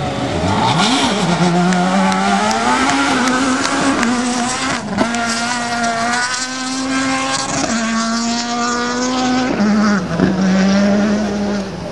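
Rally car engine running hard, its pitch climbing and falling in steps as it revs and changes gear, with a sharp crack about five seconds in.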